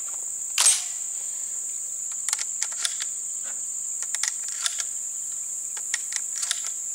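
Sharp metallic clicks and clacks of hands working the receiver and loading port of a Derya MK10 semi-automatic 12-gauge shotgun: one louder click about half a second in, then scattered lighter clicks in small groups. A steady high insect chorus buzzes throughout.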